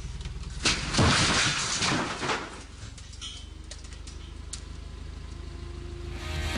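A forklift tipping forward under a heavy slab and crashing down onto a metal rack: a loud crash with clatter, starting under a second in and lasting about a second and a half, over the forklift's engine running. Music comes in near the end.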